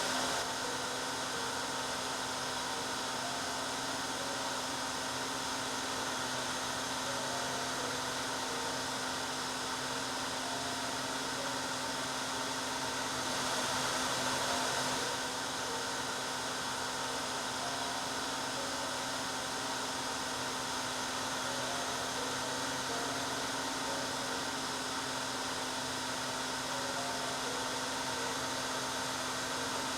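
Hair dryer running steadily: an even blowing rush with a steady hum, swelling slightly about halfway through.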